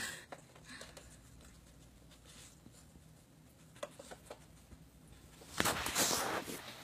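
A corgi nosing and pawing at a puzzle dog toy: light scraping and rubbing with a few small clicks, then a louder scrape lasting about a second near the end.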